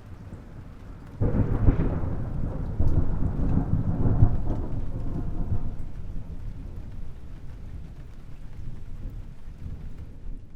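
Thunder: a low rumble breaks into a loud clap about a second in, rolls heavily for a few seconds, then slowly fades.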